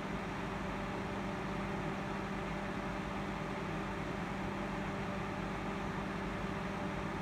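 A small electric desk fan running with a steady whir over a constant low hum.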